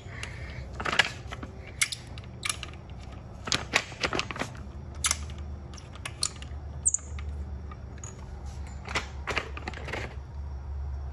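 Pittsburgh Racing floor jack being handled on a concrete floor: irregular metal clicks and clanks from its handle socket and fittings. A low rumble comes in the second half as the jack is rolled into place under the cart.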